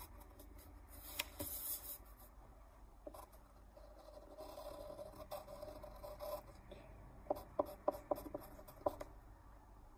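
Faint scratching of a drawing tool on paper, in short strokes, with a quick run of sharp little taps about three-quarters of the way through.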